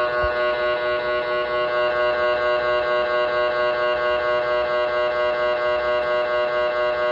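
MRI scanner's gradient coils sounding during a scan sequence: a steady pitched drone of several held tones, pulsing rapidly and evenly.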